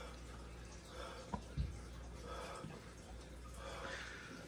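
Quiet room tone with faint handling noise and two small soft knocks about a second and a half in.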